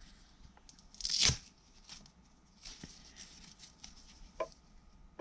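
Hook-and-loop fastening of a fabric wrist strap peeled apart once, a short tearing rasp about a second in, followed by faint rustles and small clicks as the strap is handled.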